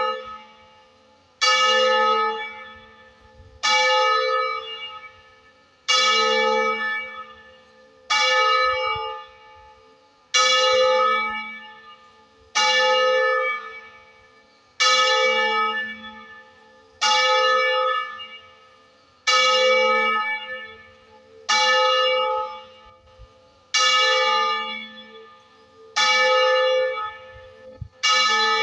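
A church bell tolling: one bell from a tower of three bronze bells cast in 1926, struck in single, evenly spaced strokes about every 2.3 seconds. Each stroke rings out and fades before the next.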